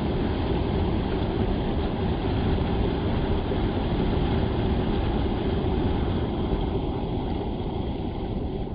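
River water rushing steadily over falls: a constant, deep rushing noise with no break.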